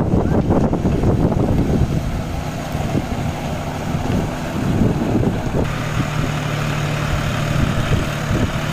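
John Deere 5050 tractor's diesel engine running steadily under load while its Shaktimaan rotavator churns a flooded paddy field, with wind buffeting the microphone. A little over halfway in, the engine sound becomes closer and steadier, with a clear low hum.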